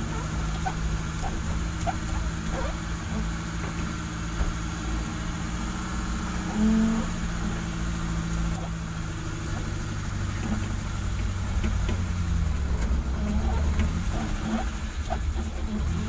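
Car engine running at low speed, heard from inside the cabin as a steady low hum, with a brief louder tone about seven seconds in.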